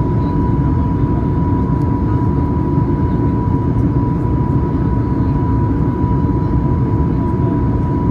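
Steady cabin noise of a Boeing 737-800 on approach: a continuous rumble of the CFM56 engines and airflow over the extended flaps, with a thin steady high tone running through it.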